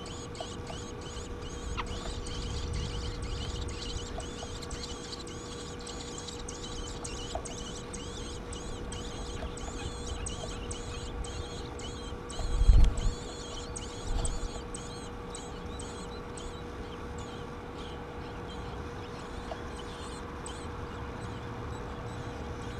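Nestlings begging: rapid, high-pitched chirping calls repeated many times a second, thinning out about two-thirds of the way through. Two low thumps come around the middle, over a steady faint hum.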